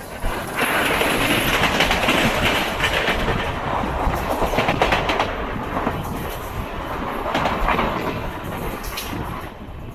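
Passenger train running on the rails, heard from aboard a coach: a steady rushing rumble with the clickety-clack of wheels over rail joints. It gets suddenly louder about a third of a second in and eases off near the end.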